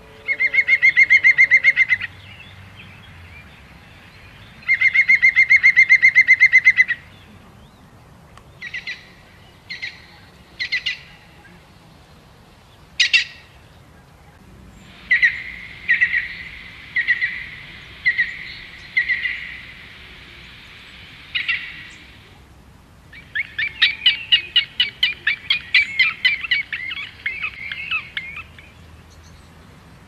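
Small birds singing: fast buzzy trills about two seconds long, repeated several times, with single short call notes and a run of evenly spaced notes between them.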